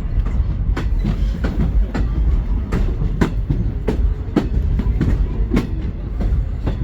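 Railroad passenger car rolling along the track: a steady low rumble with sharp wheel clicks and knocks about one to two a second.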